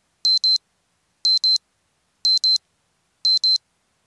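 Electronic alarm beeping, high-pitched double beeps, one pair about every second, four times, with silence between them.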